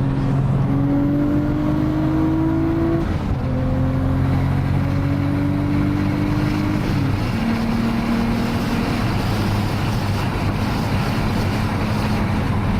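Nissan RB25 turbocharged inline-six heard from inside the cabin, pulling hard under acceleration. Its note climbs, drops at an upshift about three seconds in, climbs again, drops at a second upshift around seven seconds, then holds steady at cruising speed.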